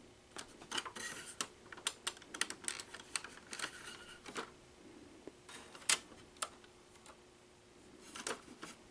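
Irregular plastic clicks and clacks of a Sony SL-100 Betamax VCR's cassette basket and eject mechanism being pushed and worked by hand, in quick clusters with short pauses. The basket is sticking, which the owner puts down to dried-up lubrication and a sticking tape-in switch.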